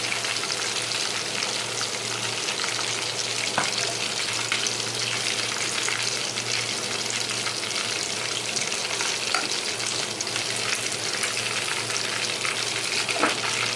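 Marinated chicken pieces deep-frying in hot oil: a steady sizzle and crackle of spitting oil, with a few sharp ticks.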